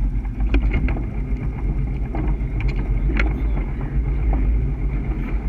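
Mercruiser 496 HO big-block V8 driving a Warlock 25 SXT catamaran under way: a steady low engine drone with the rush of water along the hull and a few short slaps as the hull meets the chop.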